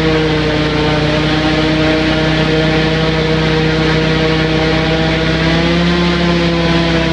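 Airboat's engine and propeller running under way at a steady speed, a loud, even drone with a slight rise in pitch about six seconds in.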